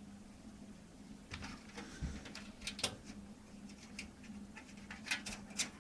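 Small sharp clicks and taps of motherboard standoffs being fitted and threaded into a PC case's motherboard tray, irregular and coming more often near the end, over a faint steady low hum.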